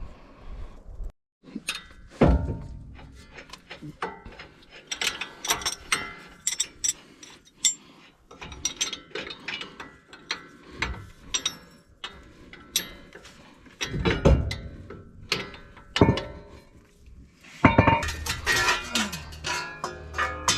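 Socket ratchet clicking in quick irregular runs and tools clanking as the three wheel-hub mounting bolts are broken loose and backed out, with a few louder metal knocks.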